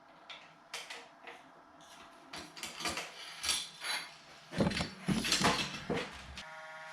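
Metal tools and bike parts clinking and knocking while a handlebar stem is being swapped, with scattered sharp clicks and louder knocks about four and a half to six seconds in. A steady tone begins near the end.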